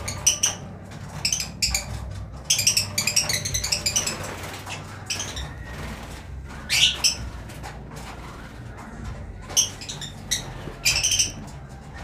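A colony of lovebirds chirping: bursts of short, shrill, high calls that come in clusters every second or two, busiest around three seconds in and again near the end.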